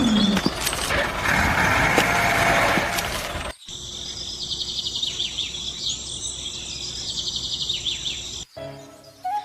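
Rough outdoor noise with a few sharp knocks, then after an abrupt cut about three and a half seconds in, small birds chirping and trilling over a quiet background until a second cut near the end.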